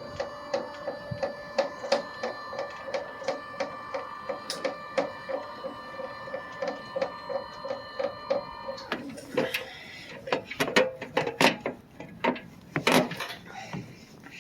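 A small motor-driven mechanism whirring steadily with a pulse about three times a second, stopping about nine seconds in. Irregular clicks and knocks follow.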